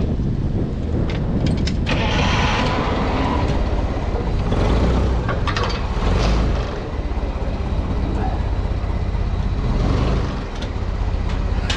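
Forklift engine running steadily, with a brief rushing noise about two seconds in and again around six seconds.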